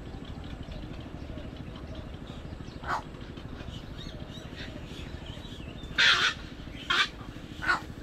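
Egret chicks giving harsh, crow-like squawks: one short call about three seconds in, then a louder, longer squawk about six seconds in, followed quickly by two shorter ones.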